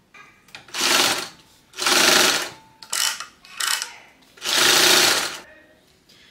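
Sewing machine stitching a seam through bag panels, run in about five short bursts of up to a second each with brief stops between them.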